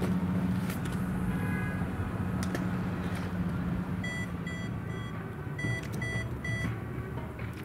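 A steady low hum for the first three seconds, then a row of short, high electronic beeps, about six, coming roughly two or three a second with a brief gap in the middle.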